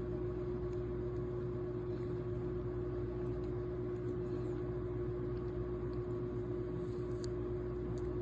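A steady hum holding one constant tone over a low drone, with a few faint ticks about seven seconds in.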